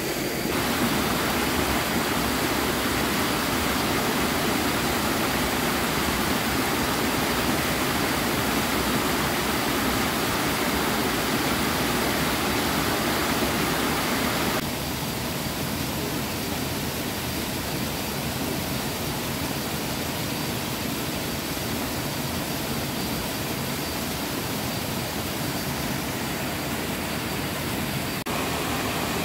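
Steady rush of flowing water, dropping a little in level about halfway through.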